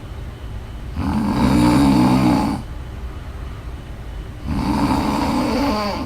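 Snoring in a slow rhythm: two long, loud snores, one starting about a second in and one starting shortly before the end, each lasting about a second and a half, with quieter stretches between them.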